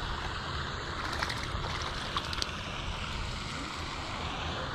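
Wind buffeting the microphone over a steady hiss of water, with a few faint clicks between about one and two and a half seconds in.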